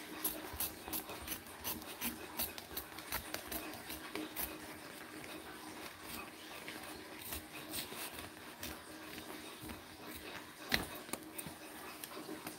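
Scissors cutting away the excess upholstery fabric along an armrest's edge: a run of quiet snips, with one sharper click near the end.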